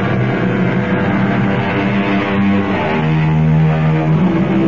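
Instrumental music with sustained held chords, a musical bridge between scenes of the radio drama; the lower notes change about three seconds in.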